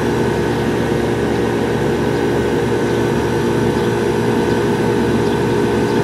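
A 1977 Lennox AC condenser unit running steadily: a constant mechanical hum with several fixed tones. The original compressor is running on its own without a hard-start kit, now that the stuck contactor has been replaced.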